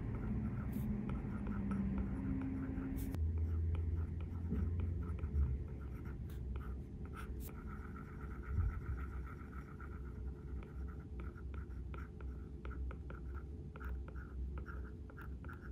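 Apple Pencil tip scratching and tapping on an iPad's glass screen during handwriting: a run of short strokes and small taps over a low steady hum.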